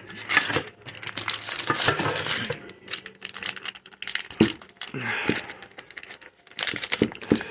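Foil trading-card booster pack wrappers crinkling and rustling as they are handled, in quick irregular crackles.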